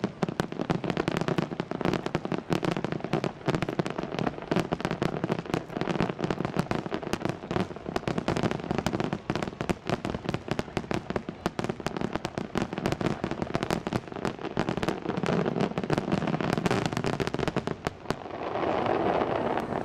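A star mine fireworks barrage heard from a distance: many aerial shells bursting in quick succession, a dense, continuous rattle of overlapping bangs. Near the end the bangs stop.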